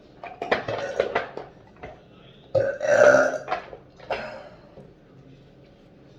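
A woman burping loudly: a rough, broken burp in the first second and a half, then a longer, louder burp about two and a half seconds in, trailing off in a short last belch near four seconds.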